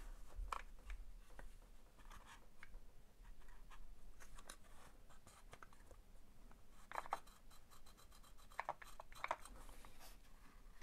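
Faint handling of plastic parts: scraping, rubbing and small clicks as the motor is worked into the Makita DX01 dust extraction unit's plastic housing, with a few sharper clicks in the second half.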